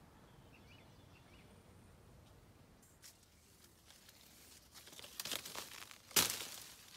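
Citrus tree leaves and twigs rustling as branches are pushed aside by hand, growing busier about five seconds in, then one loud sudden snap-and-rustle as a fruit is grabbed and pulled from the branch.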